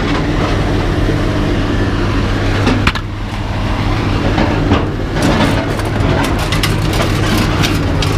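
An engine running steadily at a low, even pitch, with scattered clicks and clanks of metal over it.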